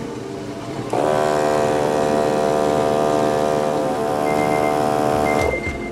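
Viair 88P 12-volt portable air compressor switching on about a second in and running with a steady, even drone while inflating a flat tire, then stopping suddenly near the end.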